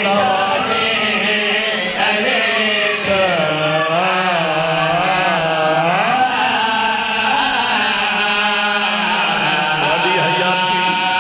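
Men's voices chanting a drawn-out, melismatic devotional recitation into microphones over a PA system. The long notes waver up and down continuously.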